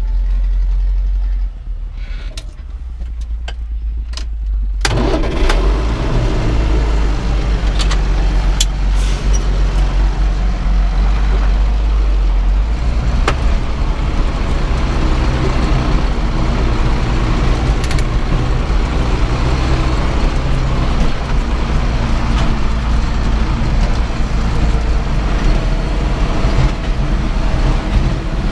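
Zetor tractor's diesel engine heard from inside the cab: a steady low drone that grows louder and fuller about five seconds in as the tractor pulls away across the field. A few clicks come before that.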